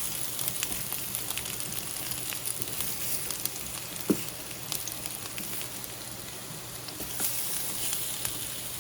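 Chopped beets sizzling and crackling in a pan on the stove as their steaming water cooks off, with a single short knock about four seconds in.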